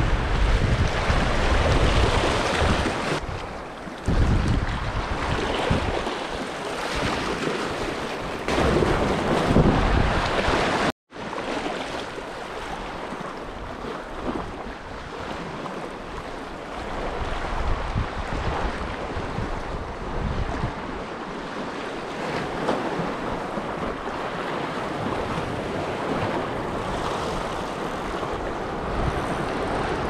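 Sea waves washing against a rocky shore, with wind buffeting the microphone. The wind rumble is heavy for the first ten seconds or so. The sound drops out briefly about eleven seconds in, then continues as a quieter, steadier wash of surf.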